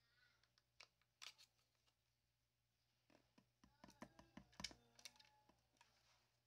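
Faint clicks and taps of a clear plastic bottle being handled against a PVC pipe mousetrap. A denser run of knocks and short squeaky scrapes comes from about three seconds in to near the end.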